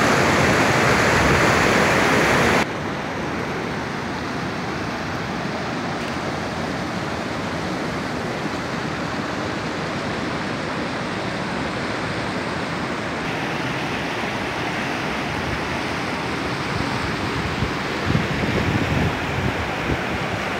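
Shallow rocky river rushing over cobbles and boulders in small rapids, a steady wash of water noise. It drops suddenly to a lower level about two and a half seconds in, and a few low bumps come through near the end.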